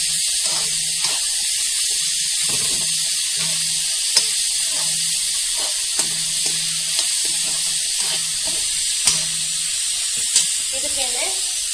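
Chopped onion and freshly added tomato frying in oil in a kadai, a steady sizzle, while a metal spoon stirs them, with sharp clicks and scrapes of the spoon against the pan every second or two.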